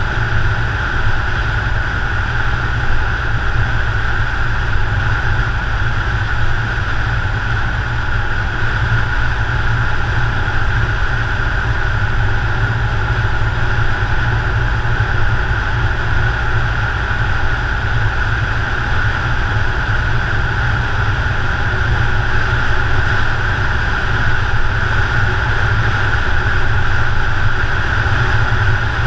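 Steady road and wind noise of a car driving at speed, picked up outside on the bonnet: a constant low rumble with a steady hiss and no changes.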